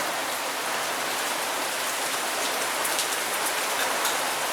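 Heavy rain falling steadily: a dense, even hiss with a few scattered drop ticks.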